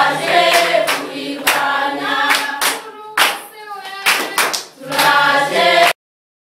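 A group of young people singing together, with hand claps between the sung phrases. The singing cuts off suddenly near the end.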